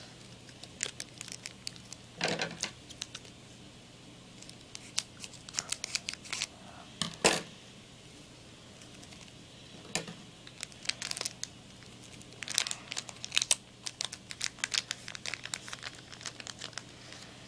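Foil trading-card booster pack being torn open and crinkled by hand: irregular clusters of crackling and tearing, with a louder rip about seven seconds in.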